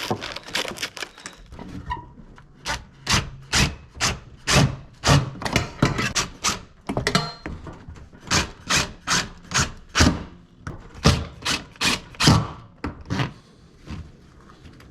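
A run of sharp knocks, about two a second for roughly ten seconds, starting about two seconds in, with a few lighter clicks before them.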